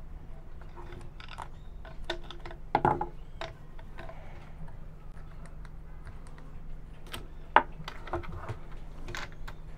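Small clicks and taps of plastic and metal parts as a masthead wind-direction sensor is unscrewed and taken apart with pliers and fingers, with one sharper click about three quarters of the way in. A faint steady low hum runs underneath.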